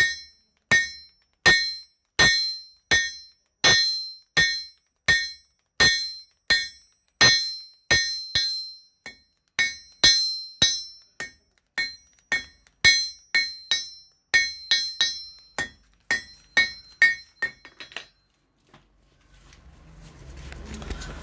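Blacksmith's hand hammer striking a red-hot iron rod on a steel anvil, a steady run of ringing metallic blows at about one and a half a second, coming a little faster later on. The hammering stops about 18 seconds in, and a low rushing noise takes over near the end.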